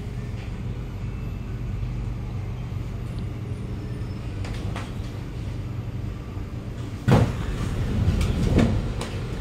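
Kawasaki Nippon Sharyo C751B metro train running, heard from inside the car: a steady low drone from the train's traction motors and wheels on the rails, with an echoey motor sound. A sudden loud thump about seven seconds in, followed by a few more uneven knocks.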